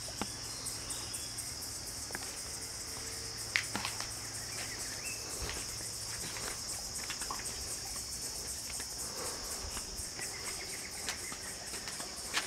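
Steady chorus of insects, crickets or similar, a continuous high-pitched chirring with fast, even pulsing. A few soft clicks and knocks sound over it, once a little before halfway.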